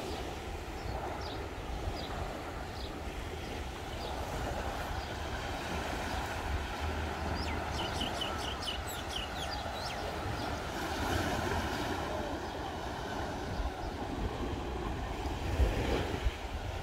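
Wind rumbling on the microphone over the wash of small waves on the beach. Scattered bird chirps, with a quick run of them about eight seconds in.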